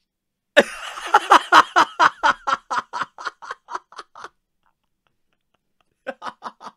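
A young man laughing hard: a long run of rapid 'ha' bursts, about five a second, that trails off after about four seconds, then after a short silence another brief burst of laughter near the end.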